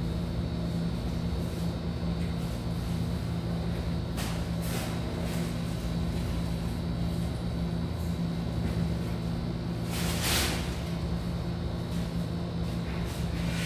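A steady, even machine hum with fixed low tones, with two brief hissy noises about four and ten seconds in.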